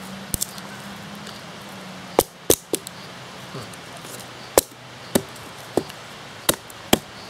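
Fiberglass-handled hand hatchet chopping into a small upright stick of firewood on a stump, splitting it into kindling: about nine sharp wooden knocks at irregular intervals.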